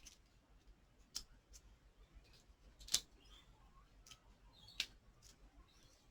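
A few faint, sharp clicks and small paper sounds as foam adhesive dimensionals are peeled from their backing sheet and pressed onto card stock. The loudest click comes about three seconds in, with smaller ones a second or so before and after.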